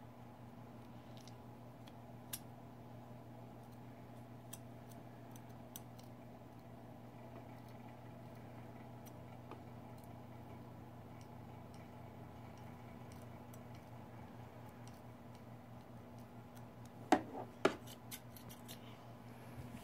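Small scissors snipping through a doll's hair as scattered faint clicks, over an electric fan's steady low hum. Two sharp knocks come close together near the end and are the loudest sounds.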